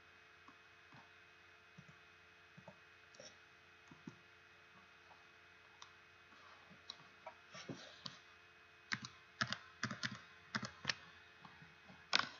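Clicks of a computer mouse and keyboard, sparse and faint at first, then coming thick and fast in the last few seconds, the loudest near the end, over a faint steady hum.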